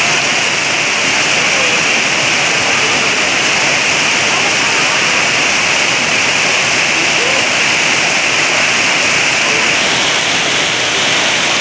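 Heavy rain falling steadily onto a pond's open water: a dense, even hiss that holds at the same loud level throughout.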